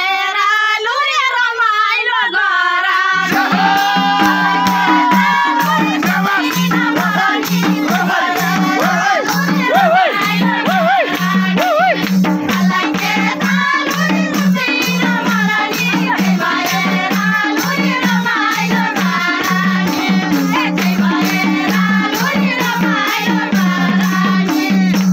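Women singing a Nepali folk song, with a jingling tambourine and madal hand drums beating a steady rhythm. The drums and jingles come in about three seconds in.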